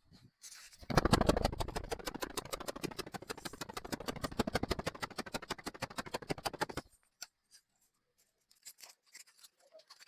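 Car engine giving a rapid, even pulsing of about eight beats a second, loudest as it begins, then cutting off suddenly about seven seconds in.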